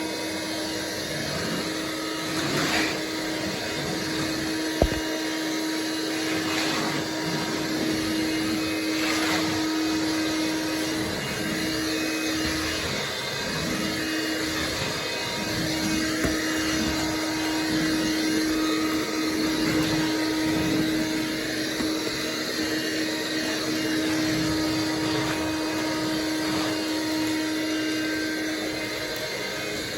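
Oreck Electrikbroom Quickstick cordless stick vacuum running, a steady motor hum with a whirring rush of air. There is a sharp click about five seconds in, and the hum's tone wavers and drops out briefly a few times partway through.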